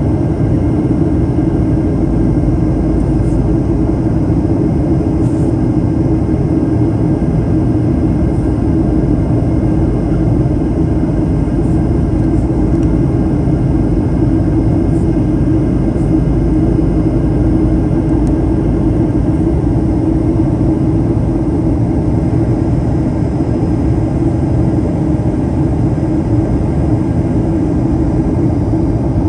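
Steady cabin noise inside a Boeing 737-800 airliner on approach: an even rush of airflow over the fuselage blended with the drone of its CFM56-7B turbofan engines, holding constant without change.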